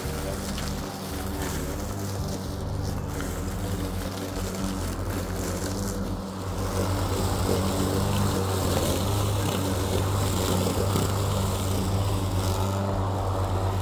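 Matrix cordless electric lawn mower, running on a 42-volt Xiaomi M365 scooter battery, with its motor and blade humming steadily as it cuts long grass. The sound gets louder about seven seconds in as the mower comes close.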